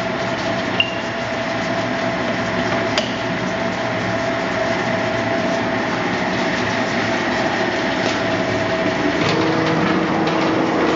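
Betts-Bridgeford big-bore lathe running under power, its headstock gearing and chuck turning with a steady machine hum. About nine seconds in, the hum's tone shifts to a lower pair of tones as the spindle speed is changed. Two sharp clicks come about one and three seconds in.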